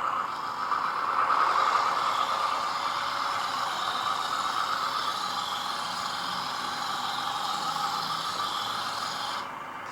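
Radio-controlled Lesu Aoue LT5H skid-steer loader running with its sound module playing a simulated diesel engine sound while the model drives and turns. The sound is steady and fades down shortly before the end.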